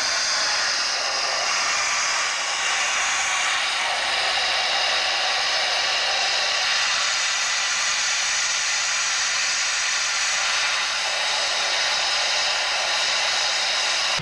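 Steam hissing steadily from the narrow-gauge ALCO-built 2-6-2T steam locomotive Mountaineer, a continuous high hiss.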